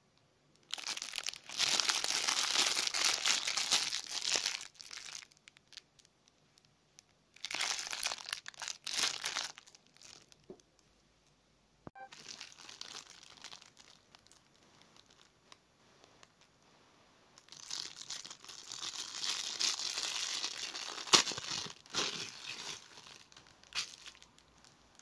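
Thin clear plastic bag crinkling and rustling as hands handle it and take the small tin out, in four bouts with short quiet gaps. Toward the end there is one sharp crack.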